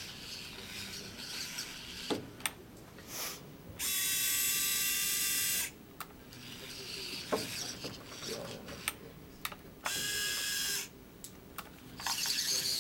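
The robot's Bluebird hobby servo motors whining through their gearing in two bursts, one about two seconds long near the middle and a shorter one about a second long later, with scattered clicks and knocks of the robot's mechanism in between.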